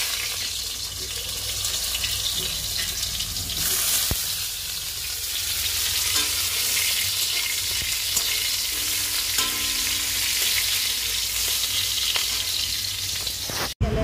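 Pointed gourds (parwal) frying in hot oil in a steel kadai: a steady sizzle that flares louder briefly at the start and again about four seconds in, cutting off suddenly just before the end.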